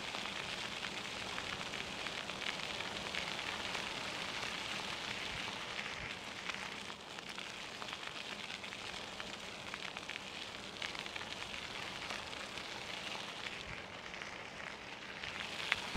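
Bicycle tyres rolling over a loose gravel road: a steady hiss of grit with fine ticks under the wheels.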